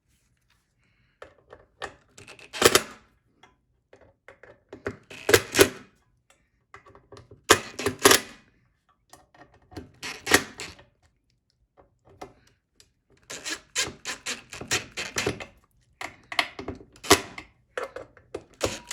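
A string of sharp clicks and knocks from parts being handled and fitted back together while the ERV blower is reassembled, single ones a few seconds apart and a quicker run of clicks about two-thirds of the way through.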